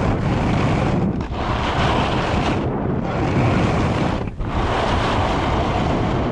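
Wind rushing over the camera microphone, mixed with the hiss of a Telos DST 158 splitboard, ridden as a snowboard, sliding and carving across snow at speed. The noise drops briefly about a second in and again just past four seconds.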